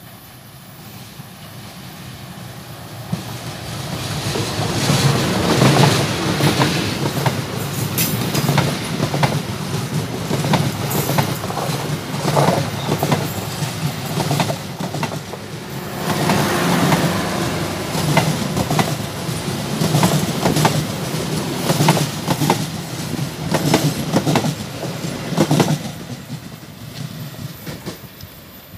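Diesel-hauled KA Malabar passenger train passing close by. A steady low rumble builds over the first few seconds as the locomotive approaches. The carriages then roll past with repeated wheel clicks over the rail joints, and the sound fades as the train draws away near the end.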